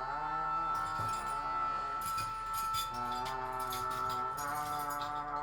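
Music of sustained tones that shift in pitch every second or so, with jingling percussion strokes from about two seconds in.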